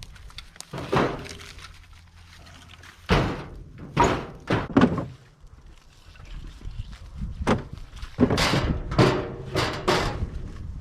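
Split firewood pieces knocking and thunking as they are tossed onto a pile: about a dozen sharp wooden knocks, a few spread out early and several in quick succession in the second half.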